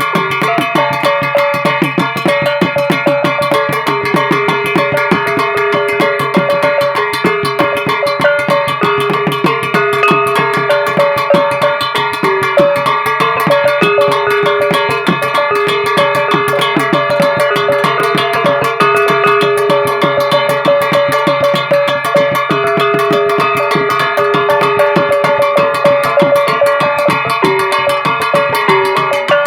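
Music with a fast, busy percussion beat over steady melodic tones.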